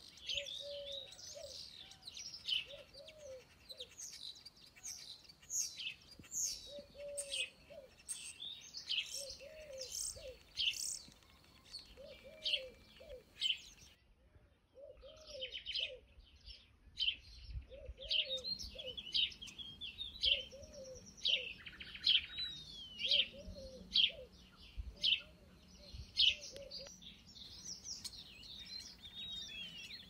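Birdsong: many small birds chirping and trilling in quick high notes, over a low call that repeats about once a second. All of it drops out briefly about halfway through.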